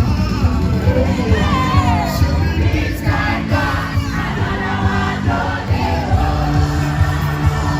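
Music with singing over a steady, pulsing bass beat, with crowd voices mixed in.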